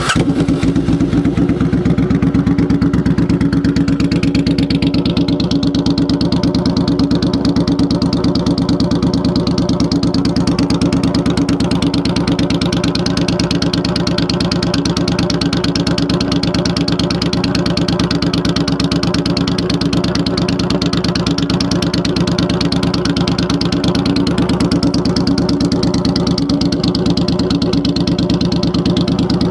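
Suzuki Boulevard C50's V-twin engine idling steadily through a non-baffled 2-into-1 performance exhaust, a loud, even exhaust note with no revving.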